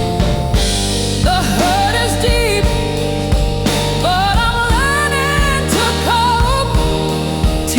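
Slow blues music: a lead melody of bending, held notes over a steady bass line and drum beat, entering about a second in.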